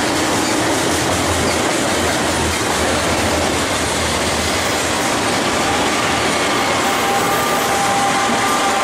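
A train rolling on rails: a steady, loud noise of wheels and rail cars, with faint steady high tones coming in about six seconds in.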